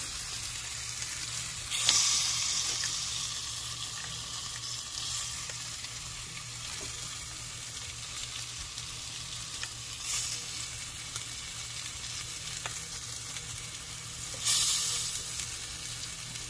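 A thick 40-ounce bone-in ribeye steak sizzling steadily on a ridged grill pan over a gas burner. The sizzle swells louder three times, about two seconds in, around ten seconds, and near the end.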